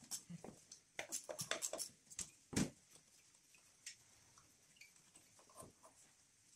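Faint, scattered clicks and taps of gloved hands working on the fittings and hoses around an engine's EGR valve, with a louder knock about two and a half seconds in.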